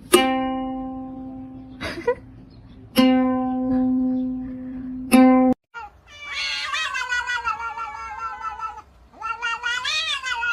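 Three single notes of the same pitch, each struck sharply and left ringing to fade, then a cat meowing in two long, wavering calls.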